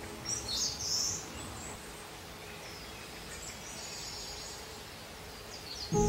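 Wild birds calling in a forest: a loud high chirping call about half a second in, then fainter high calls around the middle, over a steady outdoor hiss.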